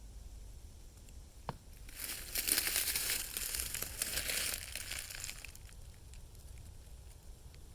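Knocking from inside a tree: a single sharp tap, then a dense crackling, rattling run of rapid knocks lasting about three and a half seconds. The owner suspects something may be inside the tree.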